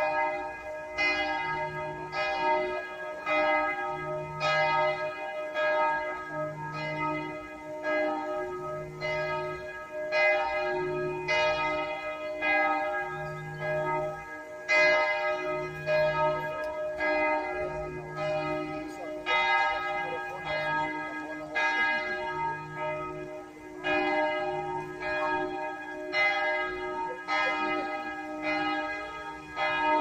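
Church bells ringing a peal: several swinging bells striking about once a second, some louder than others, each note ringing on under the next.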